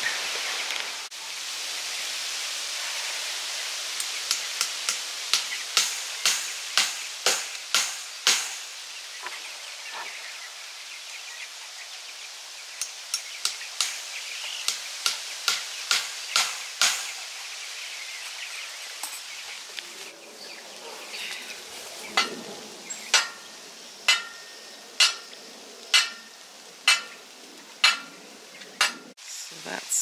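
Hammer strikes while wire mesh fencing is fixed to trees: a run of quick, sharp taps, then near the end a slower series of about one blow a second with a short metallic ring after each, over a steady hiss.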